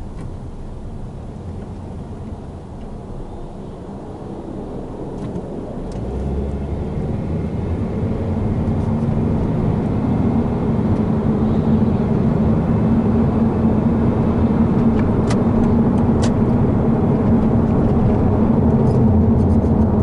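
Cabin road and engine noise of a Scion tC accelerating at freeway speed, growing louder from about six seconds in, with a faint steady high-pitched squeak from the cowl area below the freshly replaced windshield. A few sharp clicks come late on.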